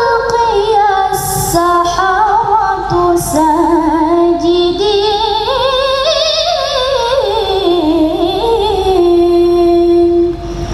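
A woman reciting the Quran in melodic tilawah style: one long ornamented phrase with quavering turns that climbs to its highest point about six seconds in, then falls to a long held note, breaking off briefly near the end.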